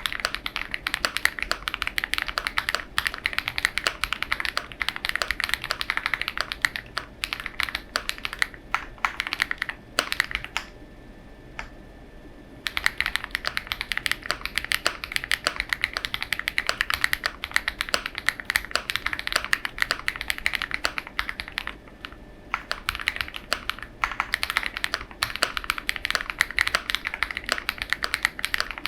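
Fast typing on a custom mechanical keyboard with lubed Huano Matcha switches, an FR4 plate and full foam, making a dense run of soft clicky keystrokes. The typing stops for about two seconds a third of the way in, then carries on, with a short lull later.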